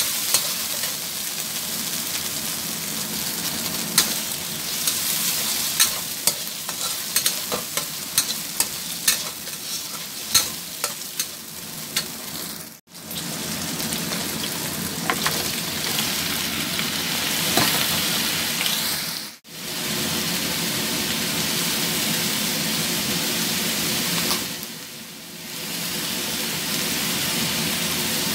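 Shrimp and minced garlic sizzling in hot oil in a wok, with a steady hiss. A spatula stirs them, clacking and scraping against the wok in sharp clicks, many of them in the first half. The sound breaks off abruptly twice.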